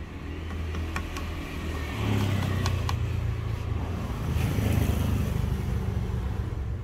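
A low engine rumble from a passing motor vehicle, swelling about two seconds in and again around the middle, with a few light knocks.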